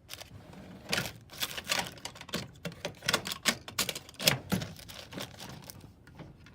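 A rapid, irregular run of clicks and knocks as a metal tool chest drawer is shut and the next is pulled open, with the tools inside clinking against each other.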